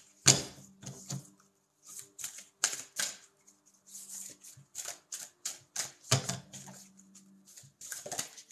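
An oversized Fairy Blessings Oracle card deck being shuffled by hand, overhand style: quick, irregular slaps and riffling of the cards as they pass from one hand to the other, with a faint steady hum underneath.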